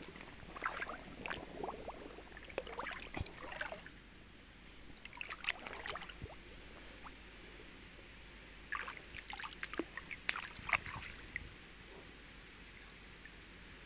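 Shallow stream water splashing and dripping in short irregular bursts, with a quiet trickle between them.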